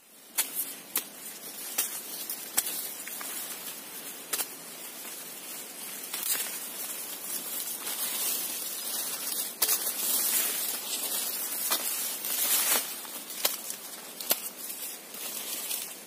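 Dry corn leaves and stalks rustling and crackling, with frequent sharp snaps scattered throughout, as corn stalks are cut by hand with a sickle.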